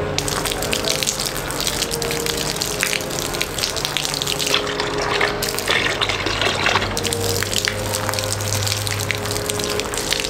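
A jet of water from a homemade bottle-cap pump driven by a small DC motor, gushing out of a plastic tube and spattering onto the ground. For a couple of seconds around the middle the stream pours into the water in the bucket, with a duller splashing sound, then hits the ground again.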